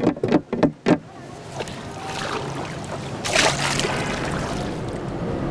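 Oar beaten rapidly against the side of a small round basket boat to draw fish, about four sharp knocks a second, stopping about a second in. Water sloshing follows, with a splash a little past the middle.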